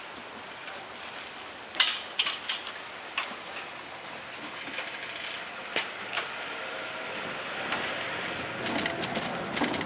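Irregular sharp mechanical clicks and clunks at a Japanese railway level crossing just after a train has gone through: a loud pair about two seconds in, single clicks near three and six seconds, and a cluster near the end, over a steady background hiss.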